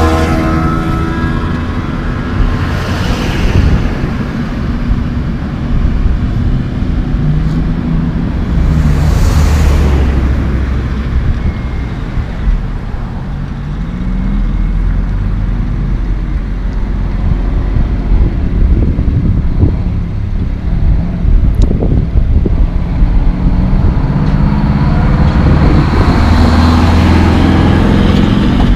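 Diesel dump truck pulling a pup trailer, driving in slowly with its engine running and rising in pitch twice as it pulls through the gears. Vehicles pass by with a rush of tyre noise about three and nine seconds in.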